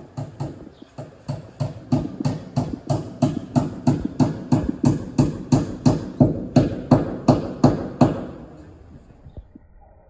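Quick footsteps on a hard path, about three a second, growing louder and then fading out about eight seconds in.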